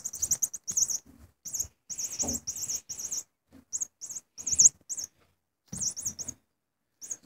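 A cat toy being batted about by a kitten, giving many short, high-pitched rattling bursts at irregular intervals, with soft thumps and scuffs on the carpet.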